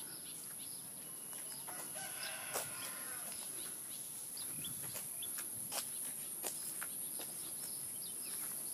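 Outdoor ambience: a pitched animal call, rooster-like, about two seconds in, over a steady high-pitched whine, with scattered sharp clicks in the second half.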